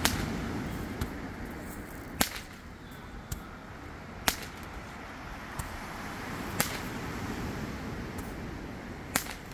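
Fireworks going off: five sharp cracks about two seconds apart, with a few fainter pops between them, over the steady wash of surf.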